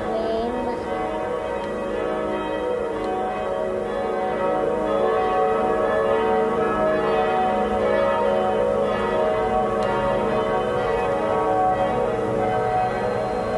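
Background music built from layered, sustained bell-like tones.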